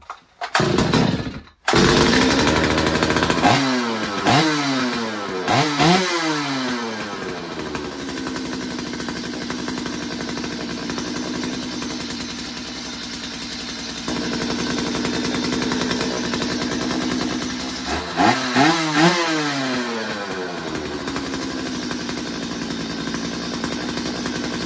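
Stihl 023 C two-stroke chainsaw engine catching on the starter pull, then running from about two seconds in. It is revved up and back down several times, idles, and is revved twice more near the end. It runs fairly loud, which the owner puts down to a damaged muffler gasket.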